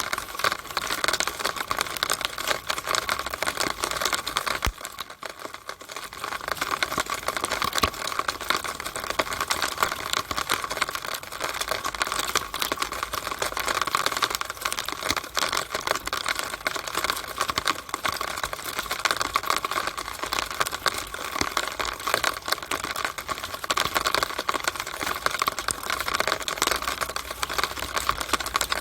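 Rainwater dripping and running through a downspout: a dense, irregular patter of drips and taps, with a brief lull about five seconds in.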